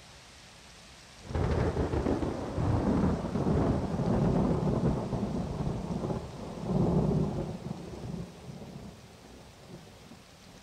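Thunder over steady rain: a loud low rumble breaks in about a second in, rolls on for several seconds with a second swell, then dies away, leaving the rain hiss.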